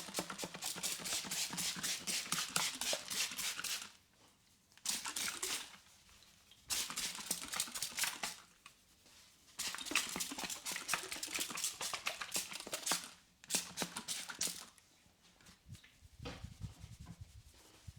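Rapid rhythmic tapping of a hand-percussion head massage, about six strokes a second, in bursts of one to five seconds with short pauses between them.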